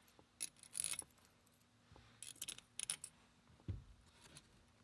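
Metal bolts and small steel shifter parts clinking and tapping against each other, as a retaining bolt is fitted and started in its hole by hand: a scatter of sharp, ringing clinks in small clusters, with one duller knock a little before the end.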